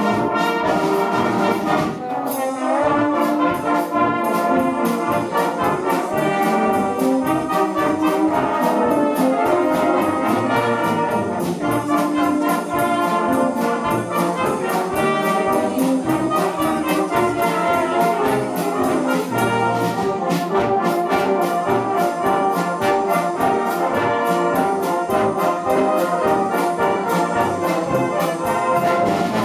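Brass band of cornets, trombones and tubas playing a piece together, with a drum kit keeping a steady beat.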